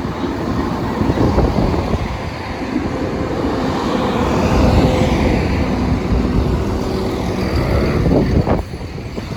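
A train passing over the level crossing: a loud rumble that builds over the first seconds, carries a steady engine tone through the middle, and drops away suddenly near the end.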